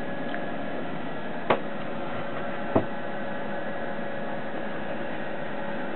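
Steady hiss with a faint constant hum, broken by two short sharp clicks, the first about a second and a half in and the second just over a second later.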